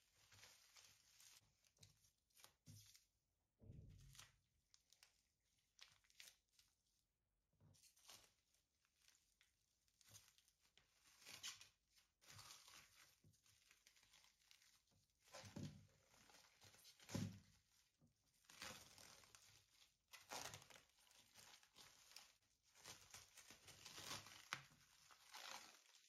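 Plastic cling film crinkling and rustling in irregular bursts as it is pulled off the roll and wrapped tightly around a log of chicken döner meat, with a few dull thumps on the stone countertop.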